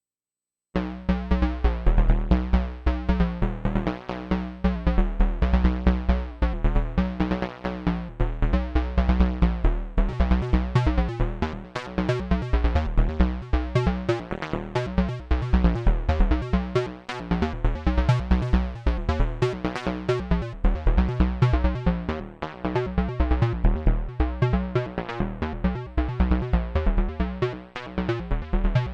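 Dave Smith Evolver synthesizer playing a single patch: a repeating electronic pattern of low bass notes with drum-machine-like percussive hits. It starts after a short silence and becomes denser and more rapid from about ten seconds in.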